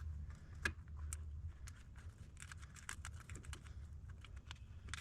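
Light, irregular clicks and taps of hands wiping down the rear differential and threading its fill plug in by hand, over a low steady hum.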